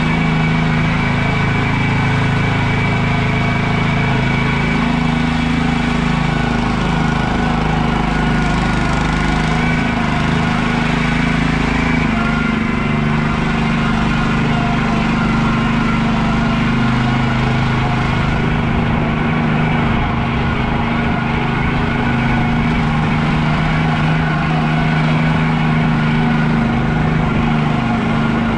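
Small engine of a PermaGreen Triumph ride-on spreader-sprayer running steadily as the machine drives across the lawn.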